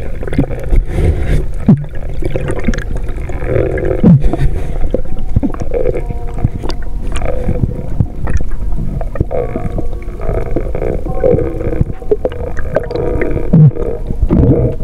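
Muffled underwater sound picked up by a submerged camera: a steady low rumble with a wavering drone and scattered knocks.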